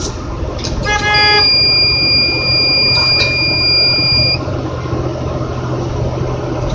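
A short horn toot about a second in, then the crane's wind-speed alarm gives one steady high beep for about three seconds, the sign of wind over 30 mph. A low engine rumble runs underneath.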